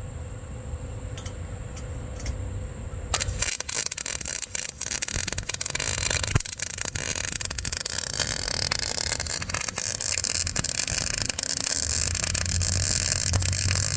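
Harbor Freight Vulcan 120-volt welder arc-welding the cut exhaust pipe: after a low hum, the arc strikes about three seconds in and crackles steadily with many sharp pops to the end.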